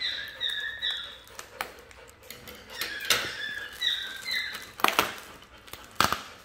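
A dog whimpering in short, high, squeaky whines, a few in quick succession near the start and again about three seconds in. Two sharp crackles of plastic packaging come near the end.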